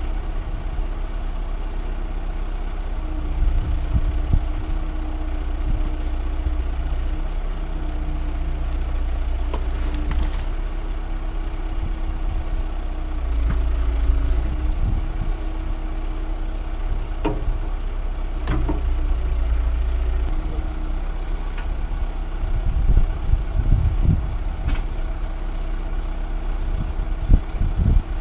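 A heavy farm-machinery engine running at a steady speed, its pitch sagging briefly about halfway through. Scattered knocks and clanks come in the second half.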